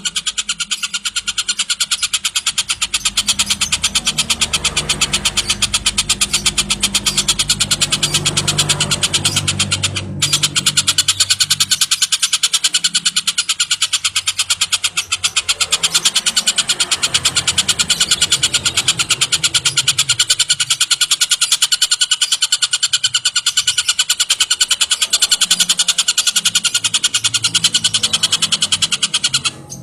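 Tengkek buto, a kingfisher, giving a continuous, very fast, harsh chattering trill that breaks off briefly about ten seconds in. A low rumble sits under it for roughly the first dozen seconds.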